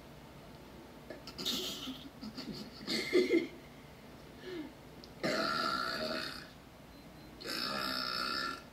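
A young woman belching: a few short burps, then two long, drawn-out belches of about a second each, the first about five seconds in and the second near the end.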